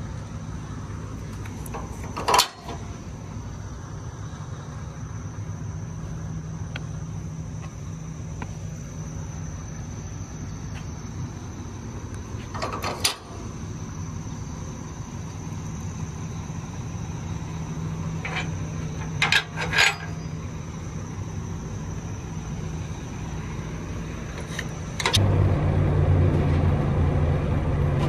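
Car-hauler truck's diesel engine idling in a steady low hum, with a few sharp metal knocks from the trailer decks and ramps. The engine is louder for the last few seconds.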